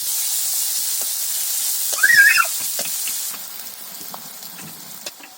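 Chopped onion and green chillies sizzling in hot oil in a wok, with a few light clicks of stirring; the sizzle drops away about three seconds in. A short high-pitched call sounds about two seconds in.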